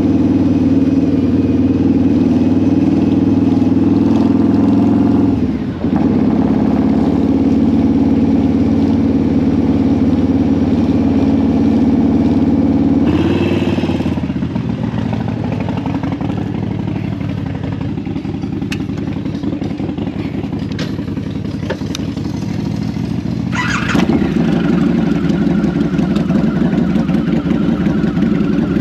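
Harley-Davidson V-Rod's 1.1-litre water-cooled V-twin running at steady road speed under a rider, with a brief dip in the engine note about six seconds in. About halfway through the sound changes and grows quieter, then the engine note steps back up a few seconds before the end.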